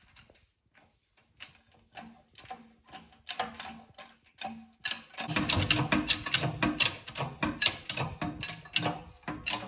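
Hydraulic shop press being worked to push a roller bearing onto the portal-axle hub through a steel sleeve on the inner race. It gives a run of quick clicks and knocks that grows louder and denser about five seconds in, over a low hum.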